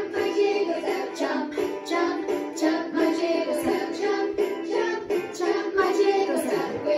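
Recorded children's dance song playing: singing over instrumental accompaniment with a steady beat.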